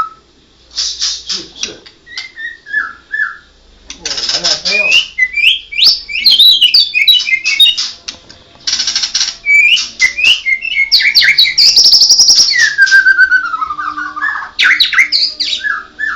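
White-rumped shama singing a loud, varied song: clear whistled phrases and quick trills mixed with short harsh chattering bursts and long falling slurred whistles.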